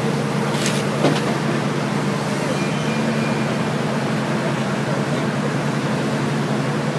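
Heavy diesel engine running at a steady pitch, with two brief sharp noises a little under a second in.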